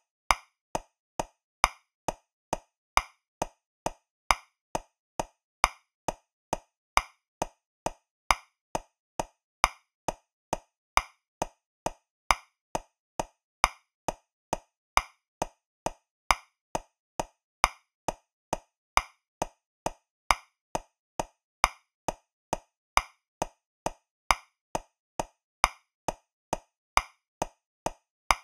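Metronome clicking steadily at 135 beats per minute in 3/4 time: a short click on each beat, with the first of every three accented and louder.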